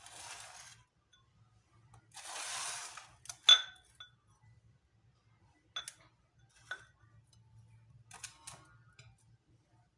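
Glass bowls being moved and set down on a wooden table: two short scraping hisses, then a sharp ringing glass clink about three and a half seconds in, followed by a few lighter clinks.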